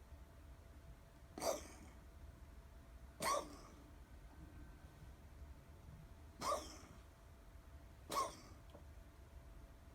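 Coughing: four short, sharp coughs, each lasting a fraction of a second, spaced a couple of seconds apart.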